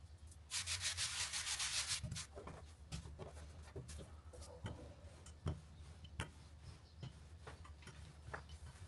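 A hand rubbing flour across a floured sheet of dough in quick scratchy strokes for about a second and a half, followed by scattered light taps and knocks of hands and a wooden rolling pin on the worktop.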